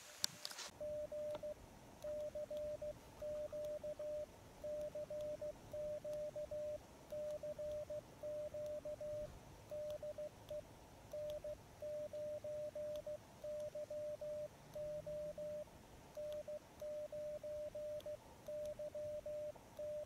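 Morse code (CW) tone from an Elecraft KX2 HF transceiver: a single steady mid-pitched beep keyed on and off in dots and dashes, with short gaps between characters and words.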